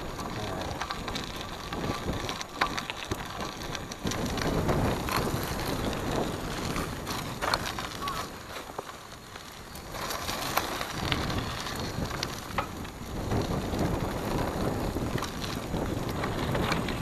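Cross bike rolling along a gravel path: the tyres crunch and crackle over loose stones with many small clicks. The noise eases off briefly about nine seconds in.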